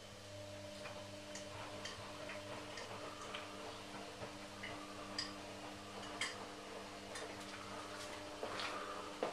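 A steady low hum with irregular light clicks and ticks scattered through it, and a sharper click at the very end.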